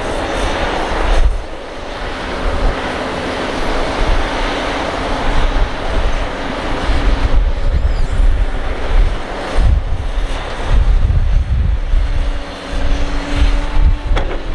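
Kobelco SK200 hydraulic excavator working, its diesel engine running with a steady hum and a noisy rush that rises and falls. Heavy low rumbling grows stronger in the second half.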